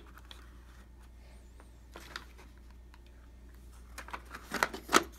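Light clicks and knocks of wooden insert trays being set down and pressed into a cardboard board-game box, a few in quick succession near the end, with one faint tap about two seconds in.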